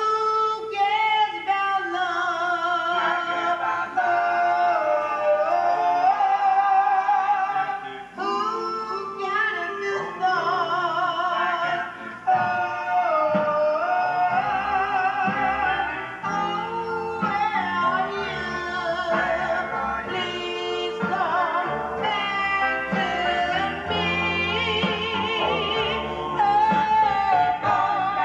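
Recorded music with a singing voice in strong vibrato, played from a phone through a 1950s Seeburg HFMA1-L6 tube amplifier into a vintage Realistic speaker and heard in the room as the amplifier is bench-tested.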